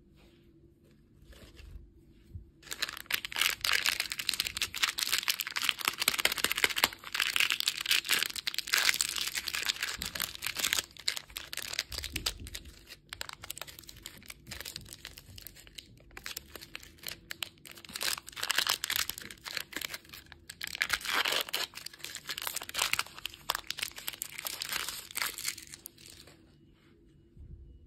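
Plastic lollipop wrapper crinkling and tearing as it is peeled off by hand. It is a dense, continuous crackle that starts about three seconds in, eases off around the middle and stops shortly before the end.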